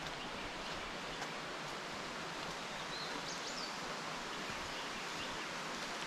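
Steady rushing outdoor ambience along a woodland trail, with a few faint bird chirps about three seconds in.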